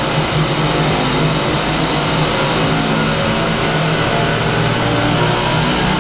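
Vespa scooter engine running steadily under load on a chassis dynamometer during a power run, a loud continuous drone.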